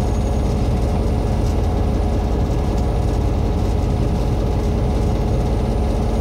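Railway locomotive running steadily, a loud low engine drone and rumble with no chuffing rhythm.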